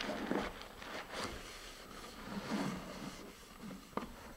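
Soft rustling and handling noises as a parachute and shock cord are packed into a fiberglass rocket body tube, with a sharp click just before the end.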